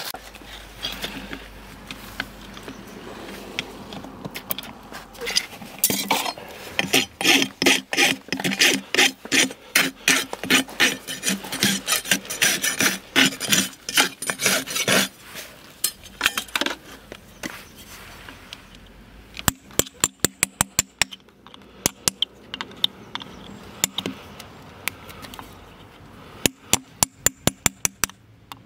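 Farrier's rasp filing a horse's hoof wall in quick, even back-and-forth strokes, heaviest through the middle of the stretch. Later come two short runs of rapid sharp taps.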